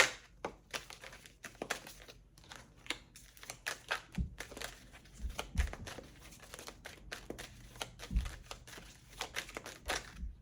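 Tarot cards being shuffled and handled: a scattered run of light papery clicks and rustles, with a few soft low thumps.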